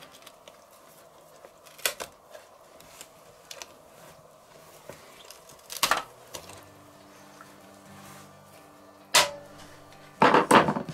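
Carving fork and knife clicking and scraping against a stainless-steel roasting pan while a roast goose is carved. A few separate sharp clicks come through, the strongest about six seconds in and a quick cluster near the end.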